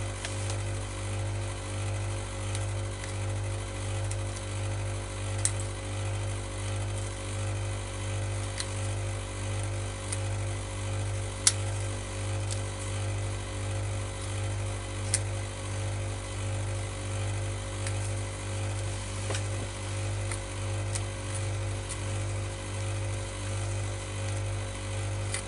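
A steady low machine hum that throbs a little more than once a second, with a fainter steady higher tone over it. A few sharp clicks cut in, the loudest about halfway through.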